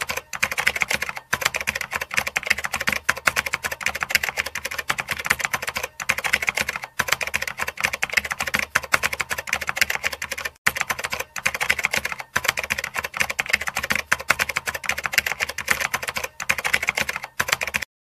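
Rapid keyboard typing clicks, a typing sound effect, running fast and dense with brief pauses every few seconds.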